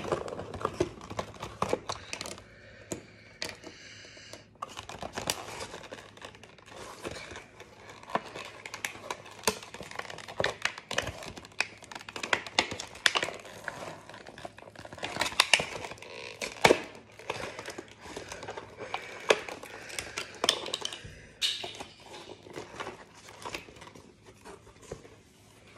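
A toy's plastic blister pack and cardboard backing being torn open by hand: irregular crinkling and tearing, with many sharp clicks as the plastic is bent and pulled apart.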